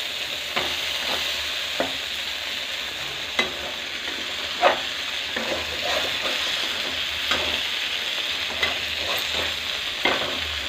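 Stuffed okra sizzling steadily in oil in a metal kadai while a flat metal spatula turns it, scraping and tapping against the pan every second or so. The masala coating has begun to release its oil, a sign the okra is nearly cooked.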